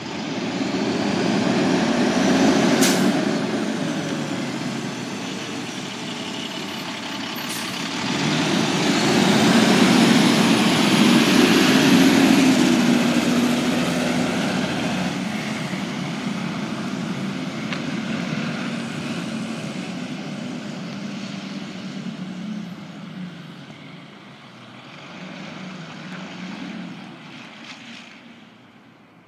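Rear-loader garbage truck's diesel engine pulling away and accelerating, loudest about ten to twelve seconds in, then fading as the truck drives off. A short air hiss comes about three seconds in.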